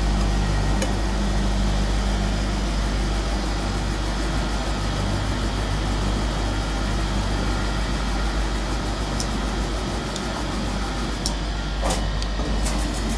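Automatic disc polishing machine for copper cups running: its electric spindle motors hum steadily under an even whir of the polishing heads. A few sharp clicks sound near the end.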